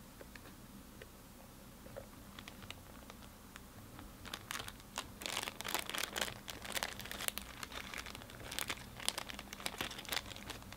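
A few light plastic clicks, then, from about four seconds in, a thin clear plastic packaging bag crinkles and crackles steadily as it is handled, stopping shortly before the end.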